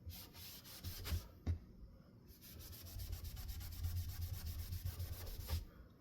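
Cleaning wipe scrubbed back and forth by hand across a Hunter Stratford ceiling fan blade to rub off caked dust and grime, with a brief pause about one and a half seconds in.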